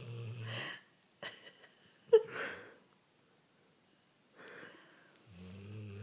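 A pet snoring: a low, rattling snore, then a few snorts and a short squeaky wheeze falling in pitch about two seconds in, the loudest sound. After a pause and an intake of breath, another low snore starts near the end.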